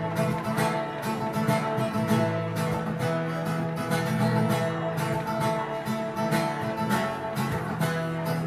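Acoustic guitar strummed in a steady rhythm, playing an instrumental passage of a country song with no singing.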